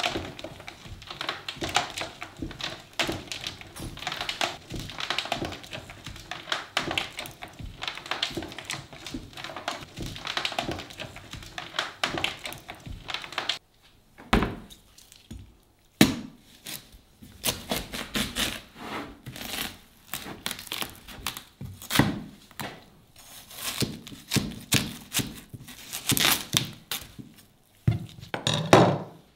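A dense patter of small clicks and crackles for about the first half. Then, after a brief pause, a large knife cuts through a whole watermelon: several separate thunks of the blade through the rind onto the wooden board, with crisp crackling of the flesh between them.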